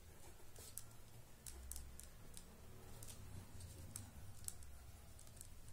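Faint scratching and ticking of a pen writing on paper in short, irregular strokes, over a low steady hum.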